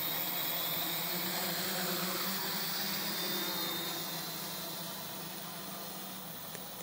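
Octocopter's eight electric motors and propellers whirring as it lifts off and climbs away: a steady hum with a high whine over a hiss, fading over the last few seconds as it gains distance.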